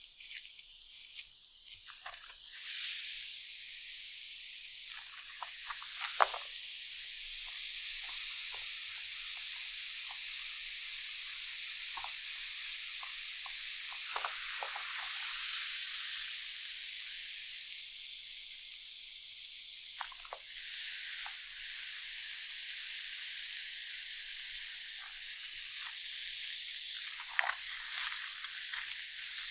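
Bath bomb fizzing in a glass bowl of water, giving a steady high hiss, with a few small splashes as a hand turns it over in the water.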